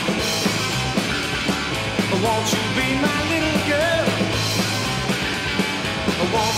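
Rock band recording with electric guitar, bass and drums on a steady beat; a wavering lead melody line comes in about two seconds in.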